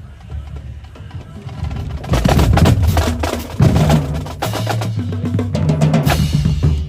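Marching drumline playing. It starts softly on low bass drums, then about two seconds in the full line comes in loud with rapid snare strokes and tuned marching bass drums running through different pitches. A bright accented hit lands near the end.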